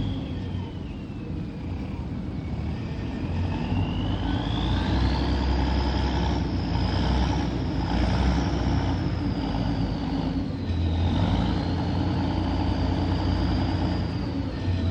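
Tugboat's diesel engine running with a steady low drone. Over it, a high whine slowly rises and falls in pitch.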